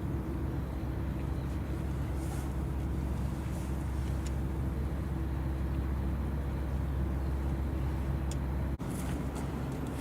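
A steady low engine hum with several held low tones. It drops out for an instant near the end.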